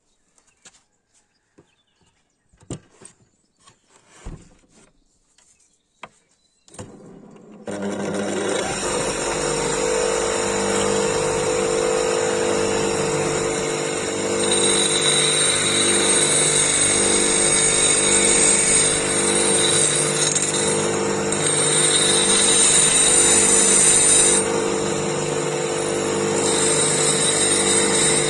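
A few light knocks and clicks, then about eight seconds in a power tool starts and runs steadily, with a high-pitched whine that comes and goes over the steady motor hum.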